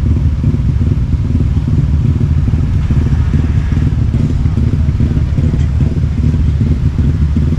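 Steady low rumble of a vehicle on the move: engine and road noise.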